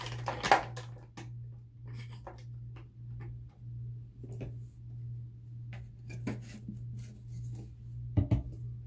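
Small objects being handled and set down, with light knocks and clicks, the loudest about half a second in and a quick pair near the end, over a steady low hum.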